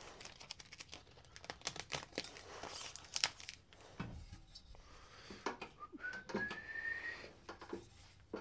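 Light rustling, crinkling and small clicks and knocks from hands handling materials at a manual carousel screen-printing press. About six seconds in, a single whistle rises in pitch for over a second.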